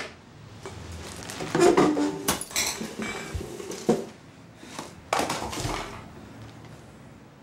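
Tableware being handled on a wooden table: a bowl and cutlery clinking and knocking in a run of clatters, loudest about two seconds in and again near four seconds.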